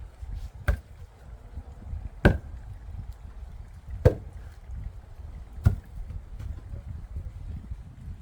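Axe splitting firewood: four sharp chopping strikes, about one every second and a half to two seconds.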